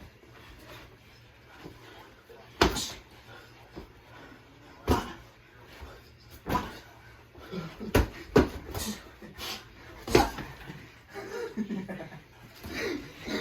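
Boxing gloves landing punches in sparring: sharp thuds, spaced out at first, then coming more quickly in the middle of the stretch.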